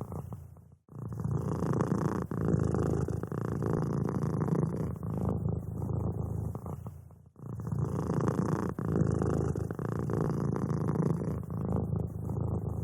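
Cat purring, a rough low rumble that drops out briefly about a second in and again about seven seconds in, as the cat breathes.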